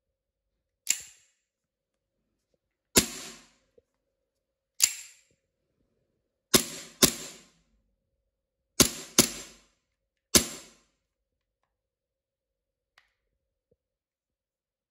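WE Beretta 92 FS gas blowback airsoft pistol being fired: eight sharp shots at an uneven pace, some in quick pairs. A faint click follows near the end.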